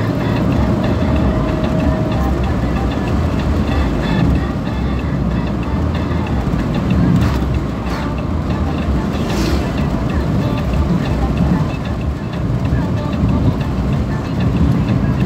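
Steady low rumble of tyres and engine heard from inside a moving car.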